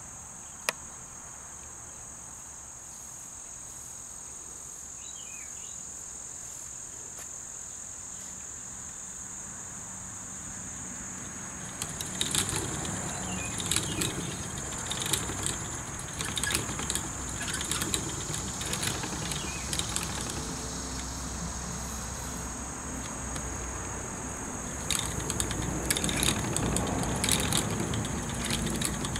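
Wooden flyer spinning wheel turning as raw wool is spun into yarn, a low rumble with irregular clicks and knocks that starts about twelve seconds in and gets louder near the end. A steady high insect chorus runs underneath throughout.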